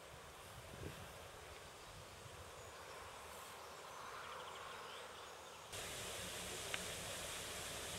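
Faint outdoor ambience with a brief, faint chirping trill about three and a half seconds in. About two-thirds of the way through it switches abruptly to a louder, steady rushing noise, with a single sharp click shortly after.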